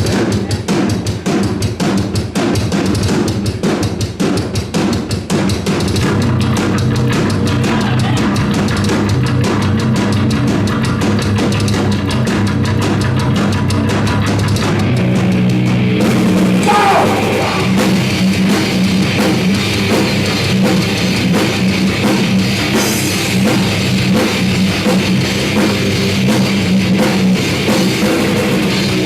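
Live heavy rock band playing: fast, dense drumming at first, then the full band with bass and guitars comes in about six seconds in and keeps a steady, loud wall of sound.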